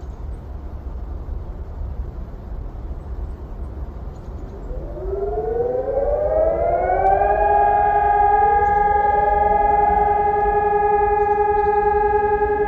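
Several electronic civil-defence sirens sounding a monthly test alarm. They start one after another about five seconds in: each tone rises in pitch for a couple of seconds and then holds steady, the sirens together forming a chord while further sirens are still rising underneath. Before they start there is only a low wind rumble.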